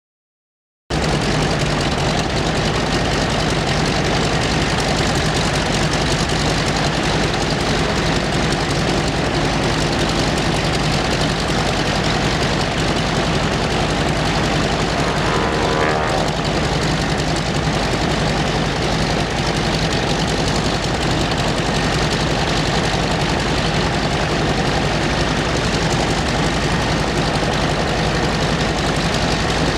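Aircraft engine running steadily at the airshow flight line, a loud even noise with a constant low hum, beginning abruptly about a second in.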